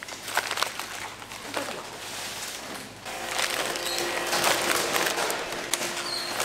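Plastic packaging crinkling and clicking as it is handled. From about three seconds in, a steadier rushing noise with a faint hum joins.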